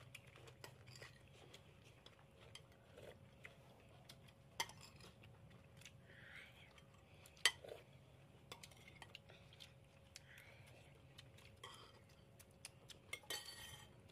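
Metal spoons clinking and scraping against ceramic plates and bowls during a meal: scattered light clinks, the sharpest about seven seconds in and a quick cluster near the end, over a faint steady hum.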